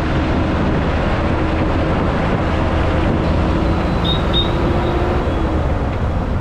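Steady engine and road noise from inside a moving city bus.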